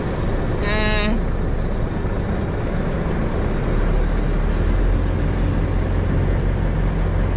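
Lorry's diesel engine running as the truck moves slowly, heard from inside the cab as a steady low drone that grows a little stronger about halfway through. A short vocal sound about a second in.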